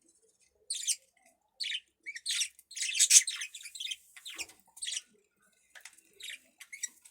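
Budgerigar squawking and chirping in a flurry of short, high calls, thickest a couple of seconds in, then sparser.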